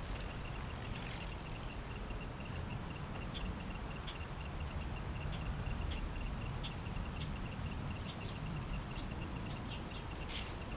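Wind rumbling on the microphone, with a faint, rapid, evenly spaced high chirping and a few scattered short higher chirps.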